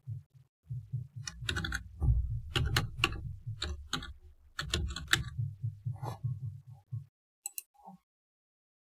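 Computer keyboard typing: a quick run of key clicks that stops about seven seconds in, followed by a few last single clicks.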